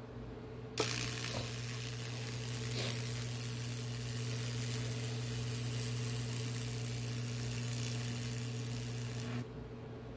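High-voltage Lichtenberg wood-burning rig powered on with a click: the transformer hums steadily while the current arcs across the wet wood with a bright hiss and crackle, burning branching figures into the board. It cuts off abruptly about a second before the end.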